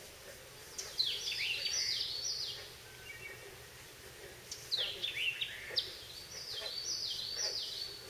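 A songbird sings two phrases of quick, high whistled notes, each note sliding downward. The first phrase comes about a second in and the second about halfway through, over a faint steady outdoor hiss.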